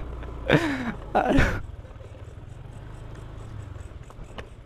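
Two short groaning vocal sounds, falling in pitch, in the first second and a half, over the low steady running of a motorcycle engine moving slowly. After them, faint rhythmic chirping of crickets.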